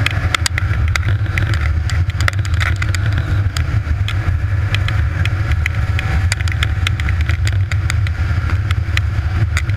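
Snowmobile engine running steadily while the machine travels over snow, heard up close from the machine itself, with frequent short sharp clicks and rattles throughout.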